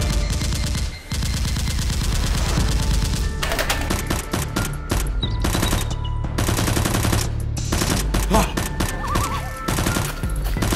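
Rapid bursts of gunfire sound effects, growing dense from about a third of the way in, over background music with a steady bass line.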